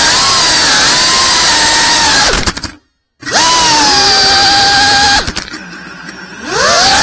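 Cinewhoop FPV drone's brushless motors and ducted propellers whining, the pitch rising and falling with the throttle. The sound cuts out completely for about half a second near the middle, holds a steady whine, drops much quieter for about a second, then climbs back in a steep upward sweep near the end.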